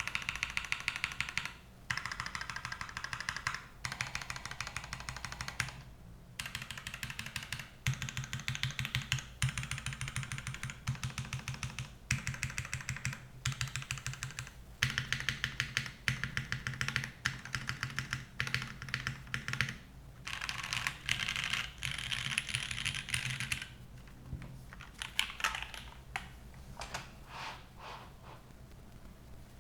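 Custom TKL mechanical keyboard with lubed Cherry MX2A Orange tactile switches on a full aluminium plate, o-ring mounted, being typed on quickly in bursts of a few seconds with short pauses between. The typing thins out to lighter, scattered keystrokes in the last few seconds and then stops.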